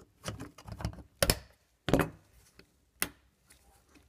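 Irregular sharp knocks and clicks from hand work on a diesel tank's plastic sender unit and its fittings, two of them louder, about a second and two seconds in.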